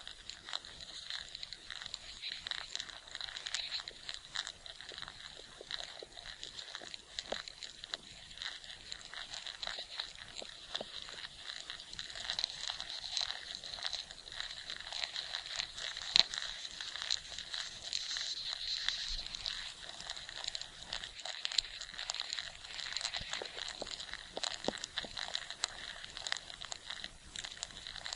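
Dense, continuous crackling and rustling made of many tiny irregular clicks, presented as the sound of an ant colony moving and working in an anthill.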